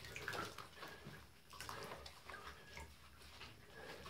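Faint sloshing of shallow bathwater in a bathtub around a wet cat being held and washed.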